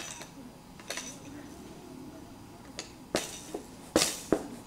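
A series of short, sharp clinks and knocks: one about a second in, then several close together in the last second and a half, the loudest near the end. A faint low murmur runs underneath.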